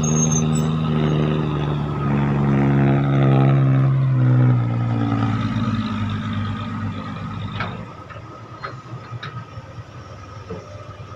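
Ten-wheel dump truck's diesel engine running as the truck pulls in, its pitch falling steadily over about five seconds. The engine sound drops away about eight seconds in, leaving a quieter background with a few light clicks.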